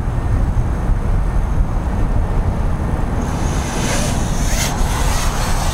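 Wind buffeting the microphone, a steady low rumble. About three seconds in, a higher hiss joins it.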